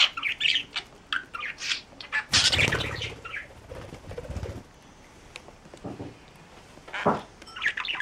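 Budgerigar chirping and chattering, then a loud burst of wing flapping about two seconds in as it flies off. Near the end a short flutter of wings as it comes back, and it chirps again.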